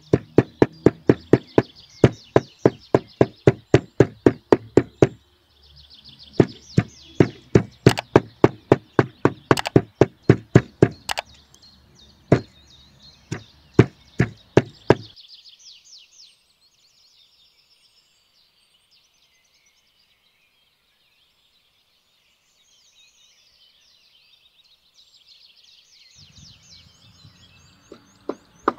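Meat cleaver chopping raw meat on a wooden log chopping block, quick steady strokes about three to four a second with short breaks. The chopping stops about halfway through, leaving some ten seconds of only faint high bird chirps, and starts again near the end.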